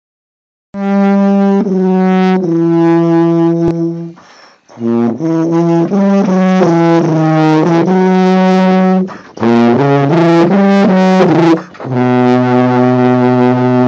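Tuba playing a slow melody of sustained notes, starting about a second in. The phrases are separated by three short breaks.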